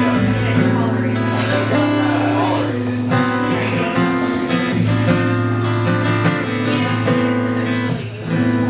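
Acoustic guitar strummed steadily through changing chords, an instrumental passage with no singing; it eases off for a moment near the end.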